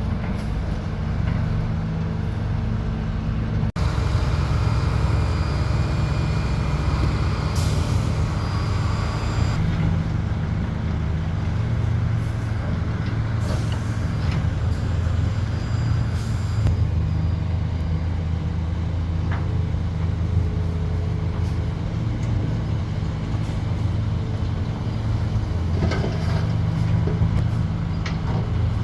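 Heavy diesel engines of large excavators and dump trucks running steadily at a construction site, with a few short hisses.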